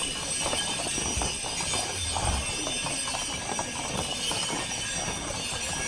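Several horses' hooves clip-clopping on an asphalt street as they walk past, with many irregular, overlapping strikes.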